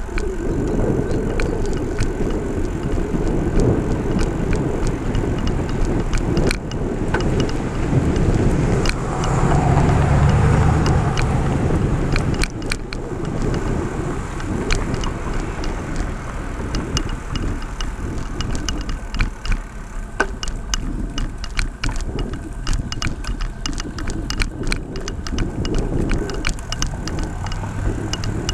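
Wind buffeting the microphone and road noise while riding a bicycle along a highway, with frequent short rattling clicks. A vehicle goes by about ten seconds in, swelling the low rumble.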